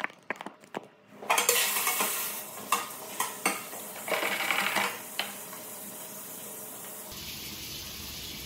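Water running and splashing in a sink as a flexible 3D-printer build plate is washed, with several sharp clicks from a wall-mounted push soap dispenser being pumped. About seven seconds in, it settles into a steadier, fainter hiss.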